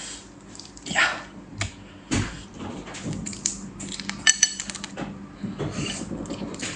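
Eating noises as a large shrimp is handled: a run of short clicks and clinks of utensils against a dish, with one ringing clink about four seconds in.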